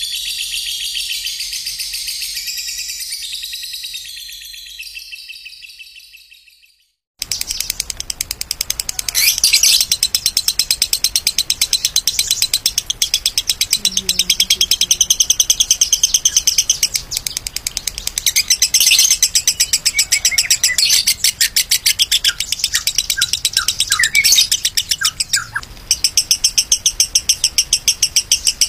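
Lovebird song used as a bait recording. A high warbling song fades out over the first few seconds. After a moment of silence, a long, very rapid chattering trill of quickly repeated chirps follows, with a short break near the end.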